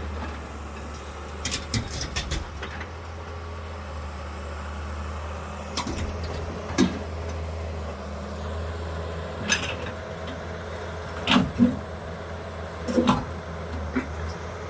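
A heavy demolition machine's diesel engine runs steadily, with scattered sharp knocks and clanks of debris and metal as the building is broken up.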